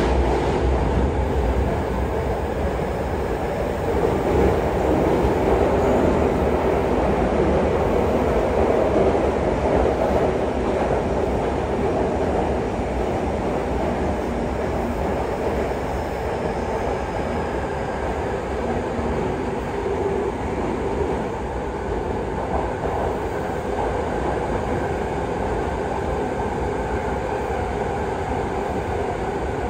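Running noise inside a Yokohama Municipal Subway Blue Line 3000A-series car (Mitsubishi GTO-VVVF drive) travelling through a tunnel between stations: a steady rumble of wheels and car body that slowly gets a little quieter.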